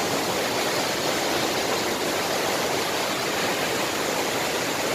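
A tall waterfall: the steady rush of falling water.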